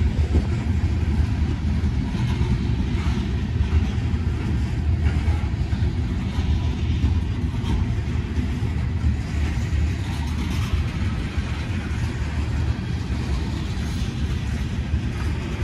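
Steady low vehicle rumble, with a few faint irregular clicks.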